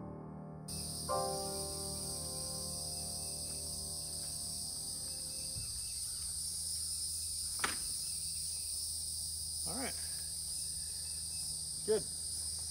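Soft piano music that ends about halfway through, over a steady high drone of insects. Once the music stops, three brief knocks stand out over the insects.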